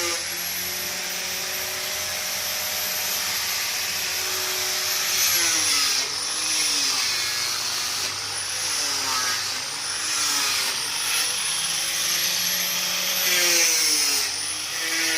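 Sawmill saw running with a steady high whine. From about five seconds in, its pitch dips and comes back up every second or two as it slows under the load of the cut and recovers.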